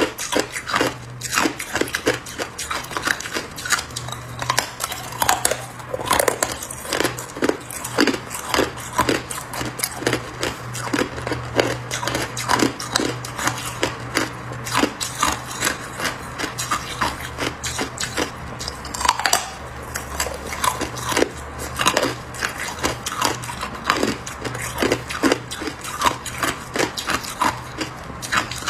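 A person biting and chewing a large block of hard clear ice: a continuous run of sharp cracks and crunches as pieces snap off between the teeth.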